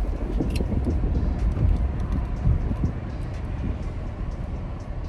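A car engine idling with a steady low rumble, with a few faint clicks and knocks.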